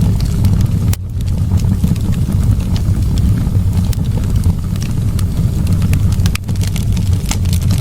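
Wood fire burning in a fireplace: a steady low roar with scattered sharp crackles and pops, a few more of them near the end.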